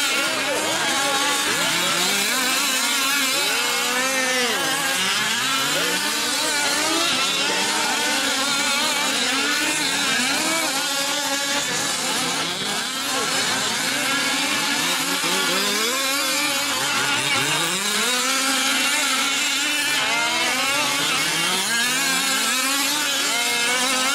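Several 1/5-scale RC off-road race trucks with small two-stroke gas engines, running together and each revving up and down, so that their pitches rise and fall over one another continuously.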